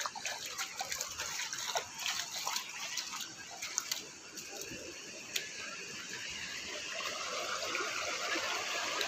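Small stream of water running over rocks, a steady rushing that grows louder through the second half, with scattered light clicks and rustling in the first half.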